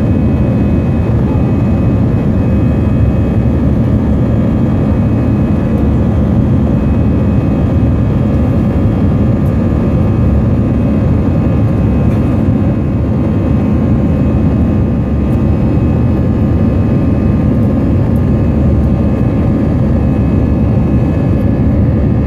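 Airbus A321's jet engines at climb power after takeoff, heard inside the cabin: a loud, steady roar with faint steady whining tones above it.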